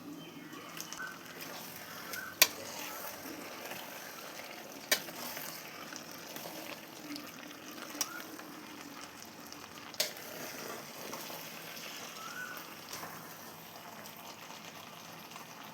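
A pan of vegetables for avial cooking on the stove: a steady sizzling and bubbling, with four sharp clinks of a utensil against the pan spaced a few seconds apart.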